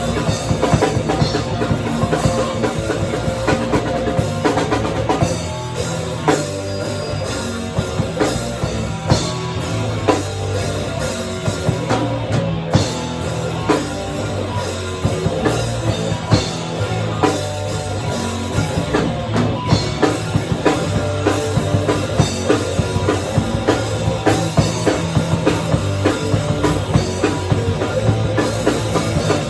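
Live rock band playing: a drum kit with fast, closely packed hits under a dense wall of guitar and bass.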